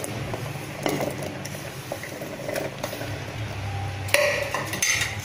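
Cubed chayote (chow chow) tipped from a plastic plate, the pieces dropping into wet, half-cooked moong dal in an aluminium pressure cooker, with a few light knocks. About four seconds in comes a louder clatter of kitchenware. A low steady hum runs underneath.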